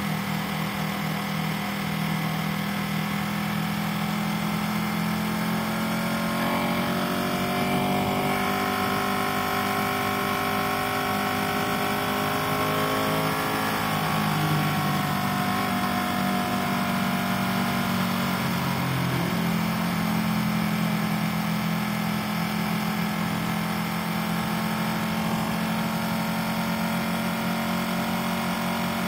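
Motorcycle engine running steadily while cruising at highway speed, with wind and road noise. Partway through, a higher engine note climbs slowly for several seconds and then drops away.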